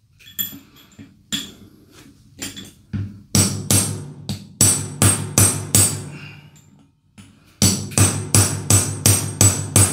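Hammer striking a steel pin punch to drive a roll pin out of a John Deere 3038e's rock shaft valve manifold: sharp, ringing metal-on-metal blows. A few light taps come first, then a run of about seven blows from about three seconds in, a short pause, and a quicker run of about eight near the end, roughly two to three a second.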